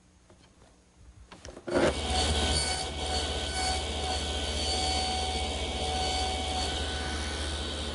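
Table saw running, its blade nibbling away wood to cut rabbets in a board. It comes in suddenly about two seconds in and runs steadily with a low hum and a high whine.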